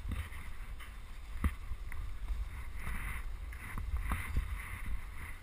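Snowboard sliding over packed snow while being towed up a drag lift, a steady scraping hiss, with wind rumbling on the microphone. A sharp click about one and a half seconds in.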